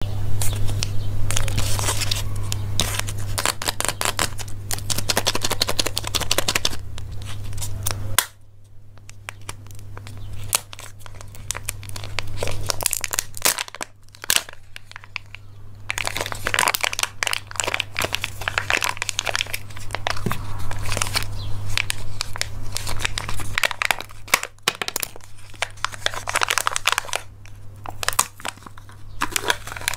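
Crinkling and tearing of a Kinder Joy egg's foil wrapper being peeled off by hand, then the sealed film on the plastic egg's lid crackling as it is peeled back. The crinkling is densest in the first several seconds, eases off, then returns in bursts, over a low steady hum.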